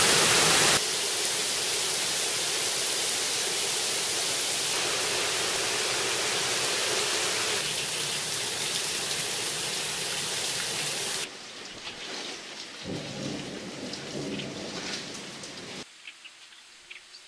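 Steady heavy rainfall hissing. About eleven seconds in it cuts abruptly to lighter, patchier rain, and near the end to scattered drips.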